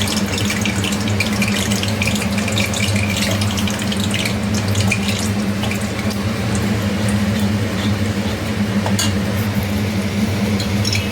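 Oil and a spoonful of ghee heating in a kadai, crackling lightly with scattered small pops over a steady low hum.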